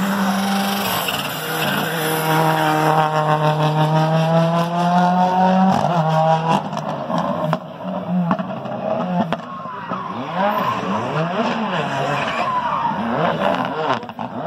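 Rally car engine running at high revs as the car passes, then revving up and down repeatedly through gear changes and corners as it drives away.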